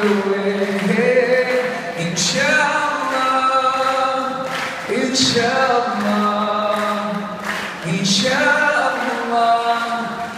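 A man singing unaccompanied into a microphone through the hall's PA, in long held notes that glide from one pitch to the next.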